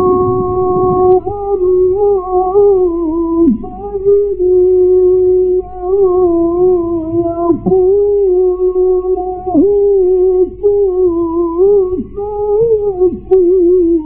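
Male Qur'an reciter chanting in the melismatic Egyptian mujawwad style. He holds one long note, then winds through an ornamented phrase with brief breaks for breath. Under the voice runs the steady low hum of an old recording.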